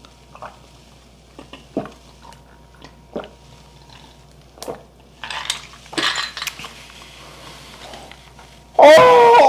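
Light clinks of chopsticks and dishes on a table. Near the end comes a loud, drawn-out vocal exclamation with a wavering pitch, a reaction to a gulp of strong liquor.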